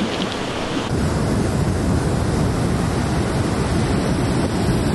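Rushing river water briefly, then, after about a second, ocean surf breaking on a beach with wind buffeting the microphone.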